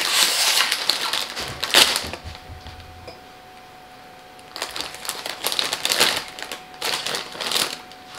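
Plastic potato-chip bag crinkling as it is pulled open and handled, in two spells of crackling with a lull of about two seconds between them.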